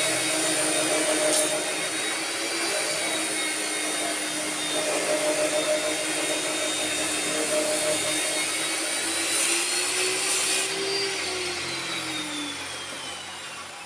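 Handheld electric power tool running at full speed with a steady high whine. It is switched off about eleven seconds in and winds down, its whine falling in pitch as it coasts to a stop.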